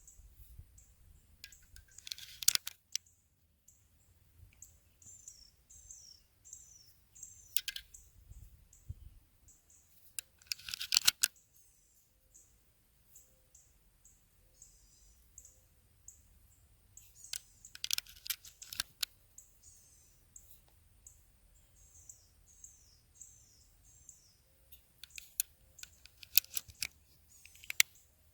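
Five or so short bursts of sharp clicks and rattles, as from handling small hard objects, with faint high chirps, like birds, between them.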